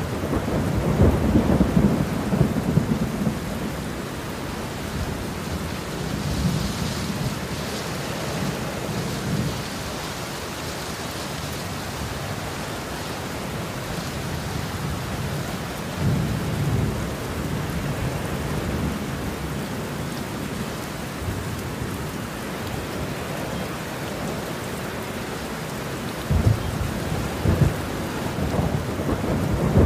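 Heavy rain falling steadily, with rolling thunder rumbling low underneath. The thunder swells loudest about a second in, again around the middle, and near the end.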